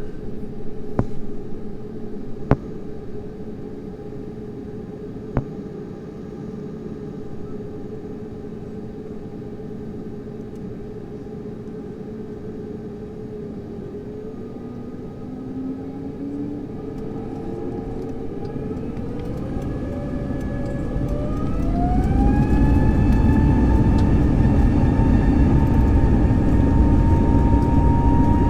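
Airbus A320 jet engines heard from inside the cabin, humming steadily at low power, then spooling up to takeoff thrust: a whine climbs in pitch for several seconds and levels off as a loud low rumble builds. A few sharp clicks early on.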